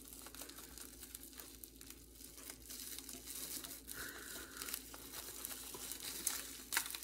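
Package wrapping being opened by hand: paper and plastic crinkling and rustling, with some tearing. The crackles get louder, with the crispest ones near the end.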